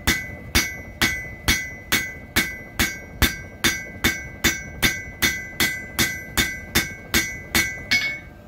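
Hammer blows on red-hot leaf-spring steel lying on an anvil: a steady rhythm of a little over two strikes a second, each with a short bright metallic ring. The hammer's round face is spreading the hot steel wider to forge a cleaver blade. The blows stop shortly before the end.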